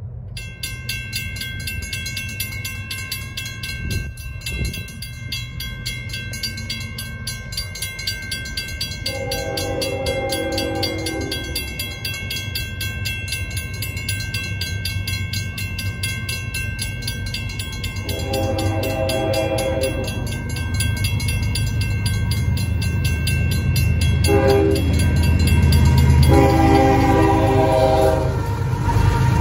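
Railroad crossing bells start ringing rapidly as the crossing activates, and keep ringing steadily. An approaching freight's lead locomotive, a GE AC45CCTE, blows its horn in the long, long, short, long grade-crossing pattern. The locomotive's diesel rumble grows louder near the end.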